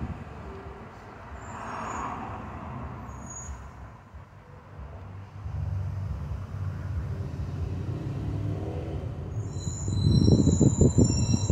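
Car road noise heard by a passenger riding in it: a steady low rumble of tyres and engine that grows louder about halfway through. Near the end it turns into a heavier, uneven rumbling.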